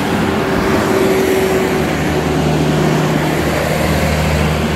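John Deere tractor engine running steadily at full throttle, driving a silage bagger that is packing chopped silage. A steady lower hum joins about two seconds in.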